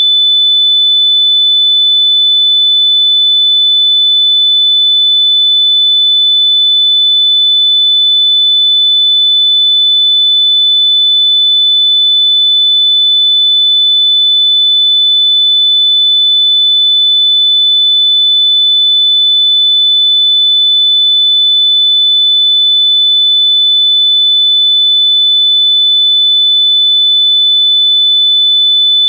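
Electronically generated sine-wave tone held at one very high pitch, loud and unchanging throughout.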